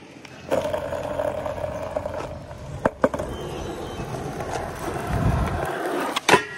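Skateboard wheels rolling over rough concrete, a steady grinding hum that starts about half a second in. Two sharp clacks come about three seconds in, and a loud clack of the board near the end as the skater pops up at the rail.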